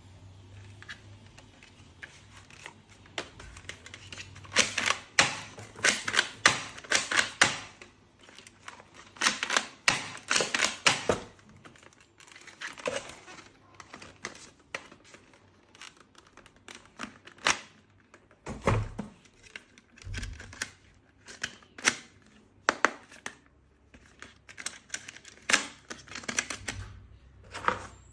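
Items and packaging being handled during an unboxing: clusters of quick clicks and rustles, with two dull thumps a little past the middle.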